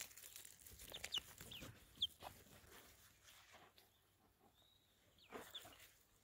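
Young pullets giving short, high-pitched chirps as they forage, several in the first couple of seconds and a couple more near the end, with light rustling in the grass.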